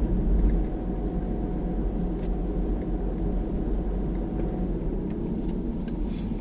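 Peugeot 308 SW diesel on the move: a steady low rumble of engine and road noise, with a few faint short high ticks scattered through it.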